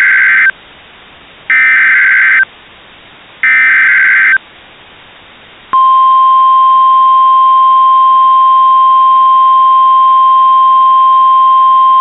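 Three short bursts of warbling SAME digital header data, about two seconds apart, from a NOAA Weather Radio Emergency Alert System broadcast. About six seconds in comes the steady single-pitch 1050 Hz NOAA Weather Radio warning alarm tone, signalling that a tornado warning is being issued.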